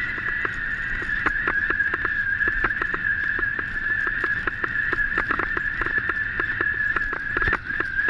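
Bike rolling fast over a rough dirt forest track, rattling with irregular knocks several times a second, under a steady high-pitched whine.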